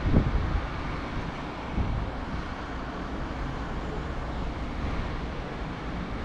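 Wind buffeting the microphone over a steady low rumble, with a few stronger gusts in the first second or so.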